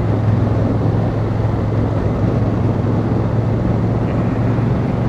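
Honda Africa Twin CRF1000L's parallel-twin engine running steadily at cruise, with wind and road noise over it.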